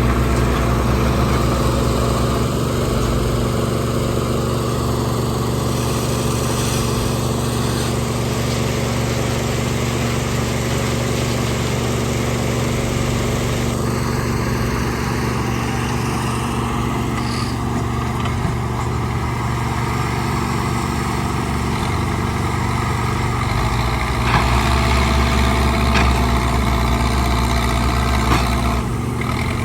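Backhoe loader's diesel engine running steadily, with a louder, deeper stretch of about four seconds near the end.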